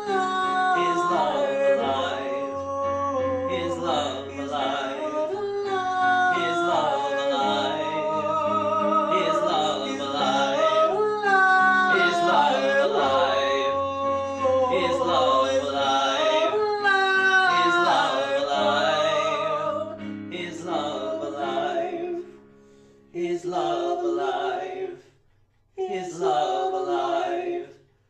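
Two men singing a slow ballad duet, with wavering held notes and runs, over a backing accompaniment of sustained low notes. Near the end the singing breaks into short phrases with brief gaps between them.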